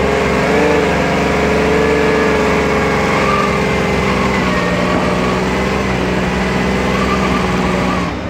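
Off-road trial car's engine pulling under load as it crawls over rock: revs come up at the start, then hold at a steady pitch.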